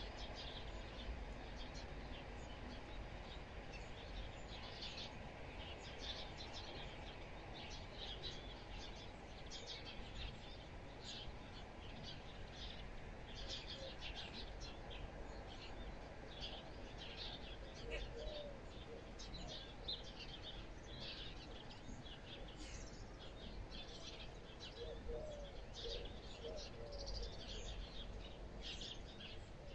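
Small birds chirping and twittering in many short, quick calls throughout, with a few lower chirps now and then, over a faint low rumble of outdoor background noise.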